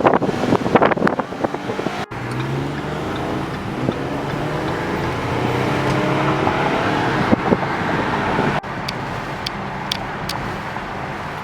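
Car engine running while driving, its pitch slowly rising as it accelerates, with two abrupt breaks in the sound.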